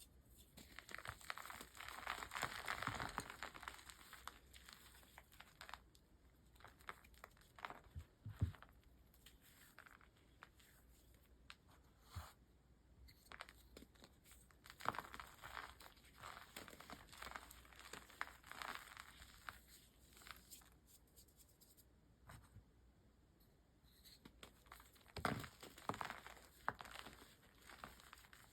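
Reformed blocks of gym chalk being crushed and crumbled by hand: irregular crunchy, crackling bursts with quieter gaps between. The busiest stretch comes a couple of seconds in, there is a sharp snap about eight seconds in, and another cluster comes near the end.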